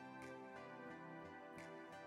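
Quiet instrumental background music with sustained notes.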